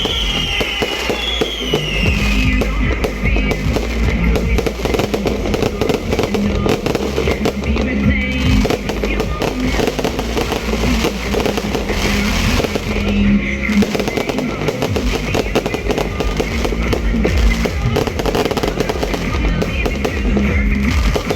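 Fireworks bursting and crackling in a dense continuous barrage, mixed with music playing over them.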